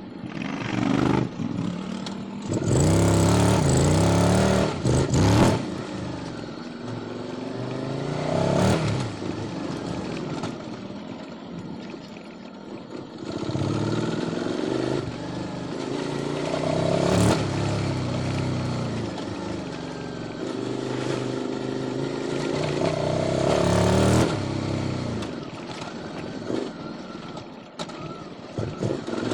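QJ Motor SVT650X V-twin engine through an Arrow Racetech exhaust on custom headers, pulling hard through the gears several times. The pitch climbs and drops back again and again as the throttle opens and closes, with the loudest pulls about a second in, near the middle and near the end.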